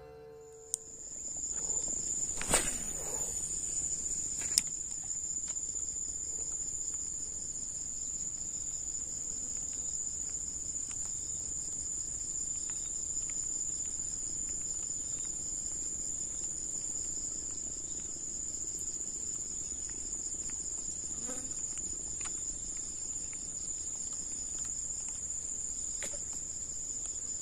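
Steady high-pitched chorus of insects such as crickets, unbroken throughout. A few sharp clicks stand out in the first five seconds, the loudest about two and a half seconds in.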